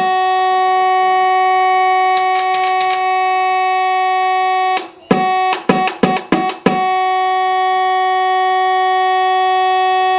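The Point Abino Lighthouse fog horn unit sounding its loud, steady tone, one pitch rich in overtones. About two seconds in it stutters briefly. Between about five and seven seconds it cuts in and out several times, then settles back to a steady tone. The unit is running again after a couple of its capacitors were replaced.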